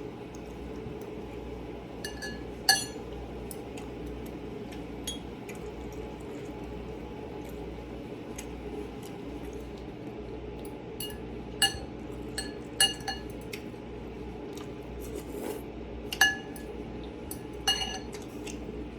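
Utensil clinking against a bowl while eating: scattered sharp clinks with a short ring, the loudest about three seconds in and a quick run of them around the middle, over a steady low room hum.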